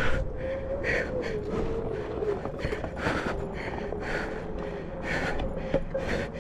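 Onewheel rider breathing hard, a loud breath about once a second, over the board's hub motor whining steadily with a slightly wavering pitch and a low rumble of wind and the tyre on the trail.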